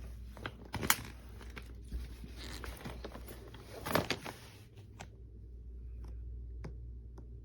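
Handling noise from a carry-on suitcase: sharp clicks and knocks with crinkling, rustling noise over the first five seconds, then only a few light ticks.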